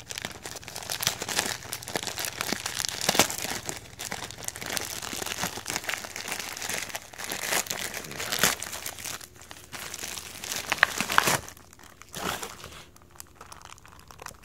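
A plastic shipping mailer being crinkled and torn open by hand: a dense run of rustling and sharp crackles, thinning to softer, sparser rustling about eleven seconds in.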